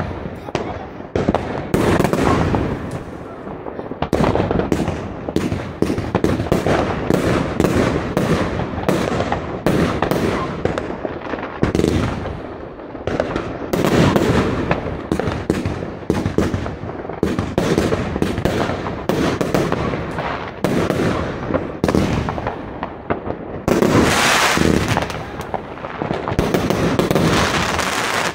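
Riakeo Peking Opera 1 compound fireworks battery firing a rapid, continuous barrage of launches and aerial bursts, with the bangs closely packed throughout. It gets louder and denser near the end.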